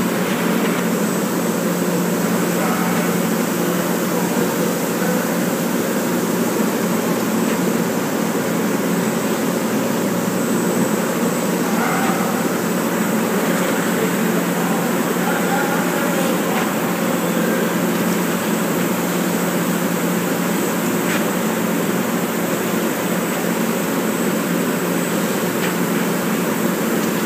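Industrial cooker-mixer running as its agitator stirs a batch of ground taco meat: a steady machine hum with a thin, constant high whine above it.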